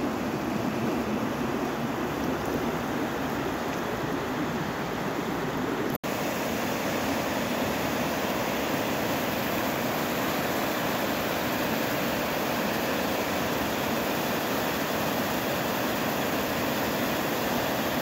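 Steady rush of white water from a rocky river's rapids, with a very short break about six seconds in where one clip cuts to the next.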